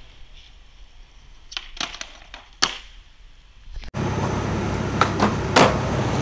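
Skateboard clacks on concrete: a handful of sharp snaps and impacts from the tail popping and the board landing, the loudest about two and a half seconds in. From about four seconds in, a louder steady rumble runs under two more clacks.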